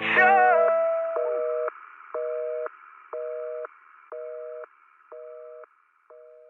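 Telephone busy signal of the North American kind: a two-tone beep repeating about once a second, each beep half a second long and each fainter than the last, over a faint line hiss. The song's last note dies away at the start.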